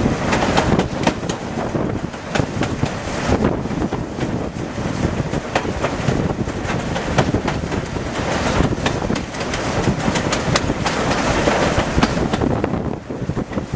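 Heritage steam train running downhill behind steam locomotive 53808, heard from an open carriage window: wheels clicking irregularly over the rail joints over a steady rushing noise.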